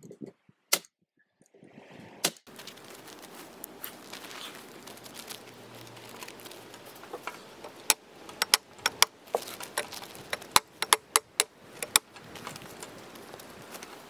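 Pneumatic nail gun firing two nails into a pine frame, sharp single shots about a second and a half apart. Then a staple gun snapping repeatedly, about a dozen quick strikes, as it fastens kraft-faced fibreglass insulation to the wood.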